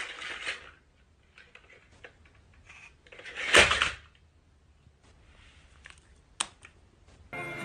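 Toy dinosaur clicking faintly, with one loud, hissing, noisy burst lasting under a second about three and a half seconds in, and a single sharp click near the end.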